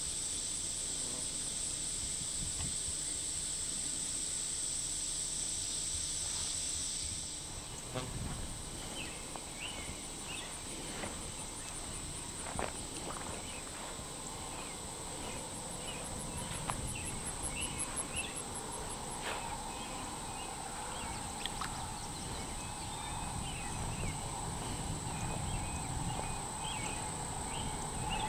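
Summer insect chorus: a steady high-pitched buzz. About eight seconds in, scattered short chirps join it, and a fast pulsing trill comes and goes around the middle.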